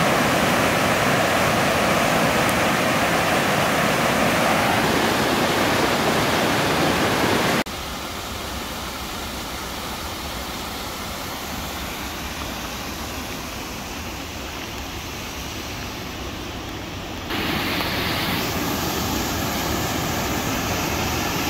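Rushing water of a mountain river and waterfalls: a steady, loud rush of whitewater over boulders, which drops to a quieter cascade sound about eight seconds in and jumps to a louder waterfall rush about seventeen seconds in.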